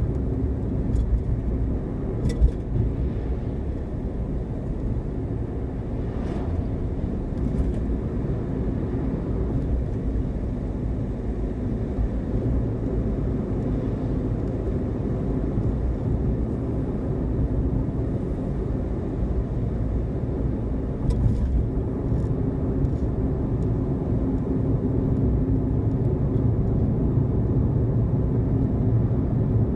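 A car driving, with a steady low rumble of engine and road noise and a few light knocks along the way.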